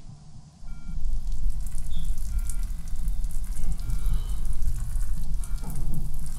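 A man urinating onto the floor: a steady splashing stream of liquid that starts about half a second in and keeps going.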